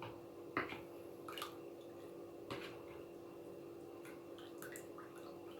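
A few light clicks and drips as kitchen utensils and liquid are handled, over a steady low hum.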